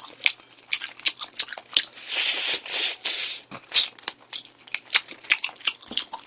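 Close-miked mouth noises of a person eating sauced chicken: many short wet clicks of chewing and of meat being bitten and torn off the bone, with a longer hiss about two seconds in.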